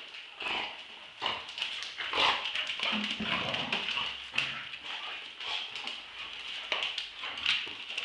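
Two Staffordshire bull terriers play-fighting in a tug of war over a cloth toy: irregular growling with scuffling and bumping throughout.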